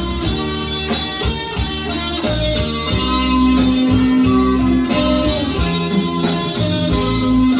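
Instrumental break of a Mandarin pop ballad: guitar-led backing music with a steady beat and long held melody notes, no singing.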